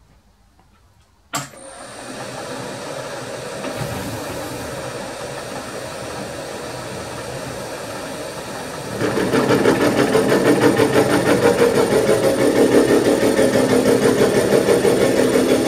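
Bridgeport milling machine spindle starting up about a second in and running steadily. From about nine seconds the 100 mm face mill bites into the steel plate on a light half-millimetre facing cut, and the sound becomes much louder with a fast, even pulsing from the cutter's teeth.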